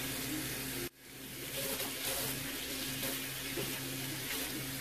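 Kitchen faucet running steadily into a stainless steel sink, the stream falling through curly hair extensions as conditioner is rinsed out. The sound cuts out suddenly about a second in and fades back within half a second.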